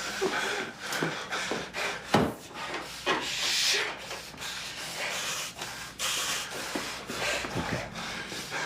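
Rubbing and scuffing noises with irregular clicks, and one sharp knock about two seconds in.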